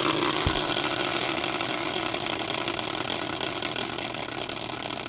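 Hand-spun prize wheel, a caster wheel on a metal bracket, spinning freely on its bearing with a steady whir that slowly fades as it coasts down. There is a short low knock about half a second in.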